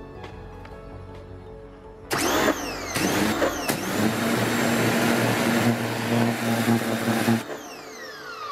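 Parkside PHD 135 C2 electric pressure washer starting up as the trigger is pulled, in a couple of short bursts and then running steadily with a motor hum and the hiss of the water jet. About seven seconds in it cuts off when the trigger is released, and the motor winds down with a falling whine.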